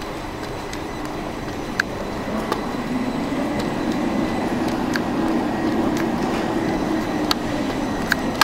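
A vehicle passing, a steady rumble that swells and then eases slightly, with a few small sharp clicks.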